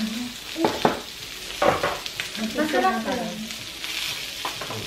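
Food sizzling on an electric tabletop teppanyaki griddle, with metal tongs clicking and knocking against the plate as pieces are turned. A short voice sound comes about halfway through.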